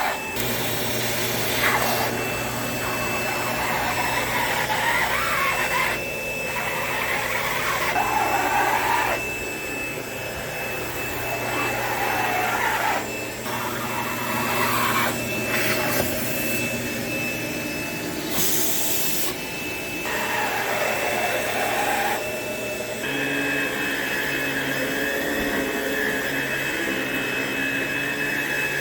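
A vacuum cleaner runs steadily, worked along the edge of a wall. It gives a high steady whine over a hum, and the rush of air changes as the nozzle moves. The motor note shifts about three-quarters of the way through.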